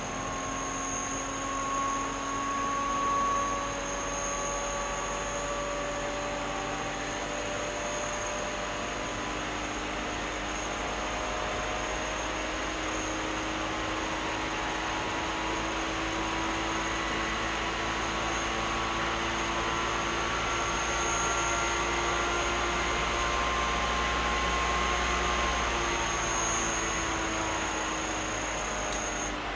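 Electric motor running steadily, a whirring hum with faint tones that drift slowly up and down in pitch.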